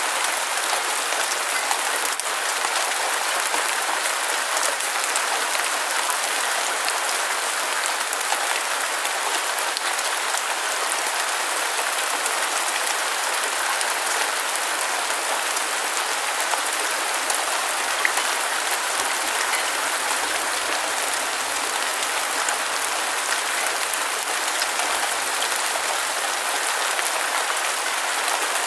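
Steady rain falling on a surface: an even hiss with scattered drop ticks, and one sharper tick about eighteen seconds in.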